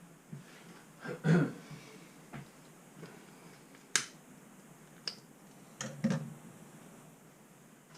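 Handling noise as a toy RC plane and its parts are picked up and moved: scattered knocks and sharp clicks, the loudest about a second in, a sharp click about four seconds in and a double knock around six seconds in.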